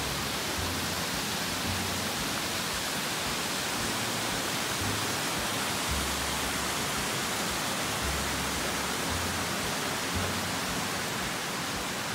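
Steady rushing of a waterfall, an even hiss with no let-up, with short low rumbles coming and going underneath.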